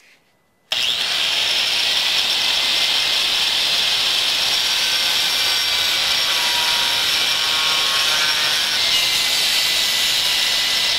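Small angle grinder with a cut-off disc cutting into a rusty steel block. It starts suddenly about a second in and runs as a loud, steady, high-pitched grinding noise.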